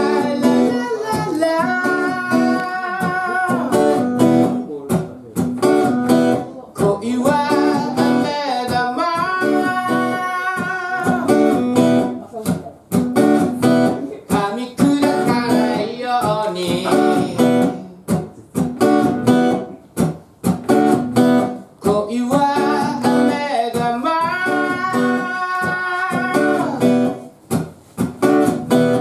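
A man singing while strumming a steel-string acoustic guitar, a live solo song in phrases with short breaks between the lines.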